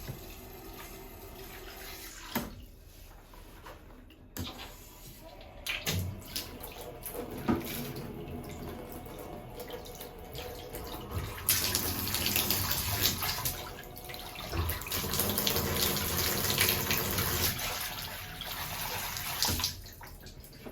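Water running hard from a bathroom faucet for several seconds, starting about halfway through and stopping shortly before the end. Before it there are a few separate knocks and clanks.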